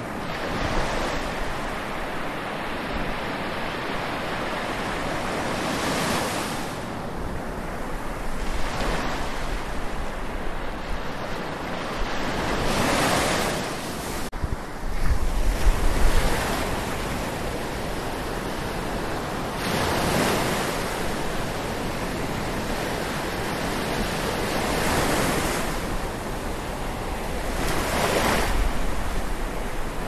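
Atlantic Ocean surf lapping and washing on a beach, the wash swelling every few seconds as each wave comes in. Wind buffets the microphone in low rumbling gusts, strongest about halfway through.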